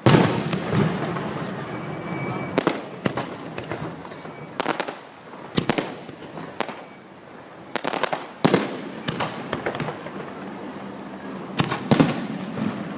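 Fireworks going off: a loud bang at the very start, then a string of sharp reports every second or so, with crackling and rumbling between them.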